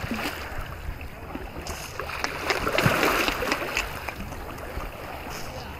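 Small sea waves washing and splashing over rocks in shallow water, swelling a little about halfway through.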